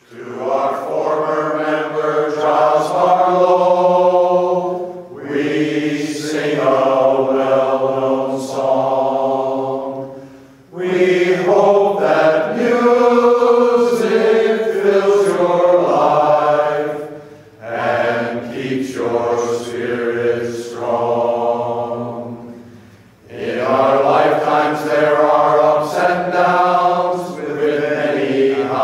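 A glee club choir of mostly men's voices singing unaccompanied in long held phrases, breaking for breath about every five to six seconds.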